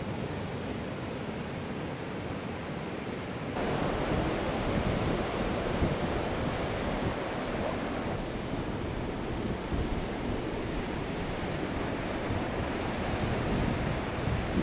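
Ocean surf washing onto a sandy beach: a steady rushing noise that gets louder about three and a half seconds in.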